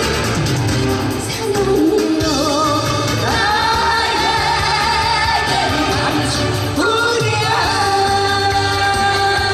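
A man and a woman singing a Korean pop duet live into microphones over backing music with a steady bass line, holding some notes for a couple of seconds.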